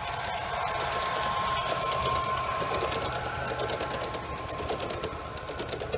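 Model train running past on its track: a small electric motor hums while the wheels rattle in quick clicks over the rail joints. It grows louder to about two seconds in, then slowly fades.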